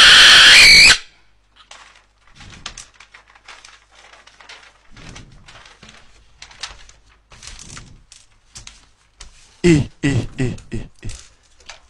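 A loud harsh blast that cuts off about a second in, then faint crinkling, rustling and light tapping of paper and banknotes being unfolded and handled on a tabletop. A voice breaks in near the end.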